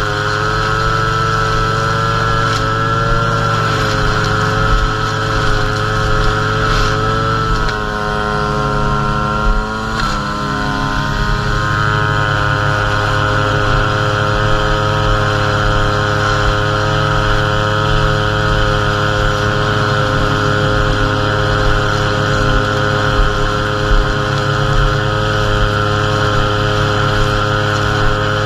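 Gas string trimmer engine running at high speed while the line edges grass along a bed border. Its note dips about eight seconds in and climbs back a couple of seconds later.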